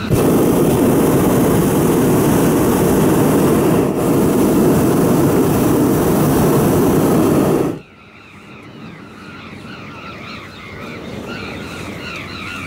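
Hot-air balloon's propane burner firing with a steady, loud rushing roar for about eight seconds, then cutting off abruptly. Afterwards many birds can be heard calling from the ground below.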